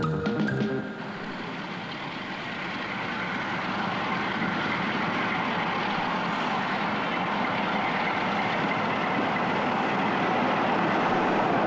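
Diesel locomotive and train running into a station, a steady noise that grows gradually louder as it approaches. Electronic title music cuts off about a second in.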